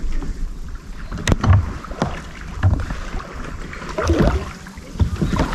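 Kayak paddle strokes in calm water: the blade dipping and pulling about every second and a half, with splashes and drips, and a sharp knock a little over a second in.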